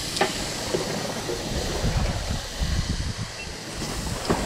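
Raw steaks sizzling on the hot grate of a portable charcoal grill as they are laid on with tongs, with a light click or two from the tongs. Wind buffets the microphone throughout.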